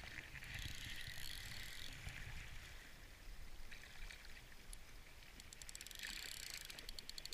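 Faint wash of small sea waves against a rock ledge, with a low rumble of wind. Near the end a fast, faint, even ticking starts.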